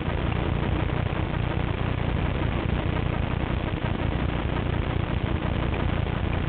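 Steady low rumble and hiss of wind and riding noise on a handlebar-mounted camera's microphone as a mountain bike rolls along a dirt trail.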